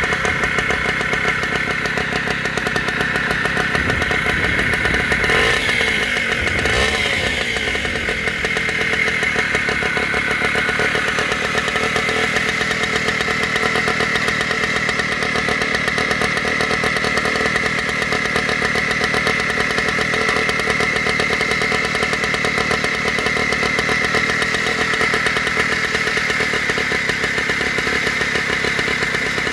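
Yamaha 5 hp air-cooled outboard engine running steadily. It is revved briefly about five seconds in, then settles back to an even run.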